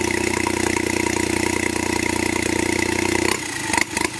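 Daihatsu EB-20 550cc turbocharged three-cylinder engine idling steadily, then cutting out about three seconds in as it runs out of fuel: only the carburettor bowl had been filled, with no fuel line connected. A few short knocks follow as it stops.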